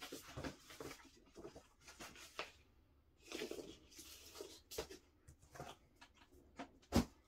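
Handling of a vinyl LP and its paper sleeves: scattered faint rustles and scrapes as the record and printed inner sleeve are slid and shuffled, with one sharper knock about seven seconds in.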